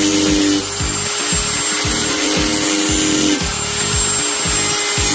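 Lusqtoff 710 W straight die grinder running with a steady high whine that shifts in pitch about half a second in and again about three and a half seconds in, as the tool is loaded. Background music with a steady thumping beat about twice a second runs underneath.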